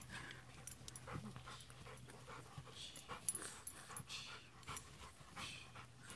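Weimaraner panting and snorting in short, irregular bursts, his nose down in a hole he is digging in loose dirt.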